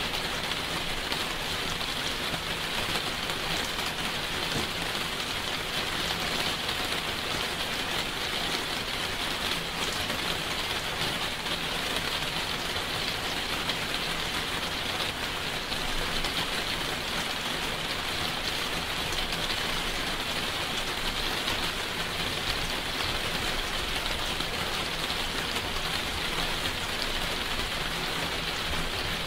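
Steady heavy rain falling, an even patter of many drops without pause or change.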